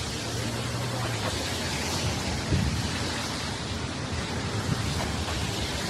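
Steady rushing hiss of heavy rain, with a low rumble of wind on the phone's microphone.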